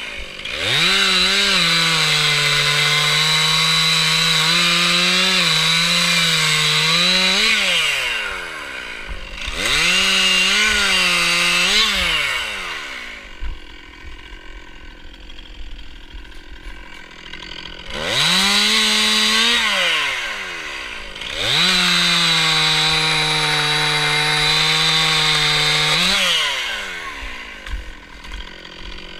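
Stihl MS 261 two-stroke chainsaw revving to full throttle in several long bursts while cutting wood, then dropping back to a low idle between cuts.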